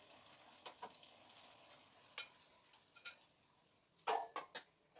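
Croquetas sizzling faintly in the oil of an electric deep fryer, with a few light clicks of metal tongs. A louder short clatter of knocks comes about four seconds in.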